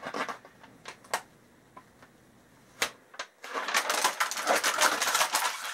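A few sharp clicks and taps, then from about three and a half seconds in a continuous crackling rasp as an adhesive disc label is peeled off its backing sheet.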